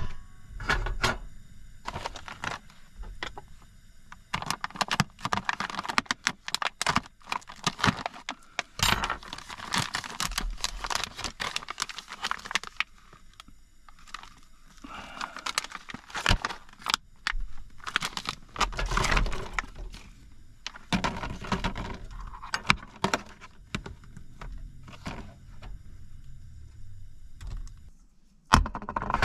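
Irregular handling noises in a cramped car interior: metallic clinks and rattles of cooking gear, mixed with crinkling and tearing of plastic food packaging, in uneven bursts with short pauses.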